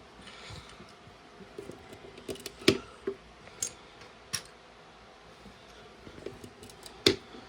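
Small plastic LEGO pieces clicking and tapping as they are handled and pressed onto the build. A scattering of separate sharp clicks, the loudest about two and a half seconds in and again just after seven seconds.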